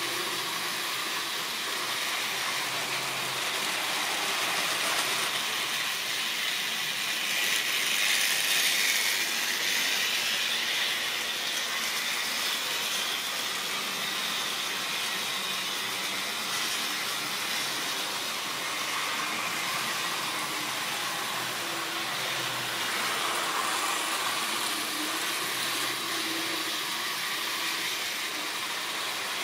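Model railway train with a long rake of tank wagons running around the layout: a steady electric whirr and the rattle of small metal wheels on the track. It grows louder about eight seconds in as the train runs close, then settles back.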